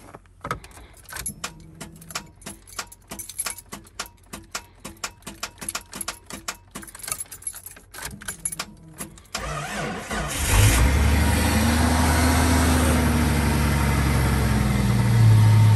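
Rapid repeated clicking from the 1986 AMC Eagle's starting circuit, about four clicks a second, as the engine is tried after a month unstarted on a low battery. About nine seconds in, the engine cranks and catches, runs up, and settles into a steady idle.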